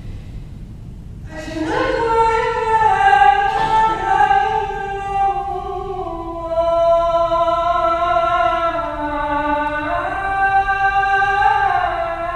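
Choir singing slow, sustained chords, coming in about a second in, with the voices moving together to new chords a few times.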